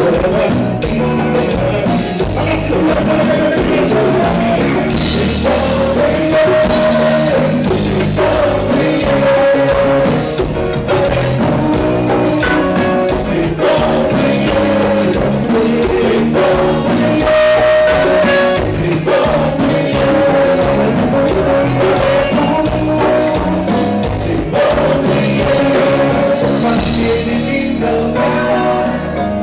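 Live Haitian kompa band playing loud and without a break: electric guitar, drum kit and hand drums under a male lead vocal.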